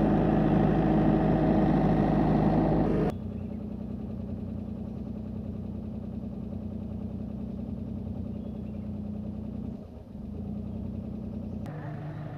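JCB backhoe loader's diesel engine running steadily close by. About three seconds in it cuts off abruptly to a quieter, steady engine hum.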